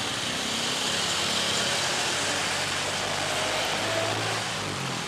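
An engine running nearby with a steady low hum that grows stronger and then stops near the end.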